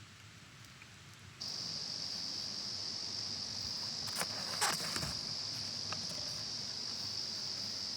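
Insect trilling steadily at a single high pitch, setting in abruptly about a second and a half in, with a few faint clicks near the middle.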